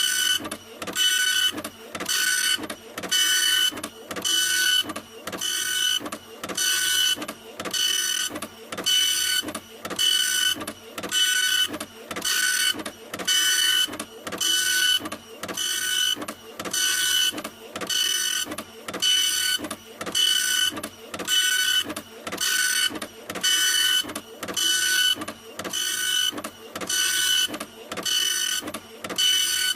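Printer running in a steady repeating cycle: a mechanical stroke about once a second, each with a high whine, looping without change.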